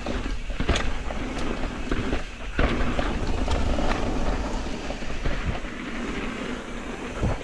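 Mountain bike riding fast down a dirt trail: a steady rumble and rattle from the tyres on dirt and the bike shaking over the bumps. A few sharp knocks stand out, one just under a second in, one near the middle and one near the end.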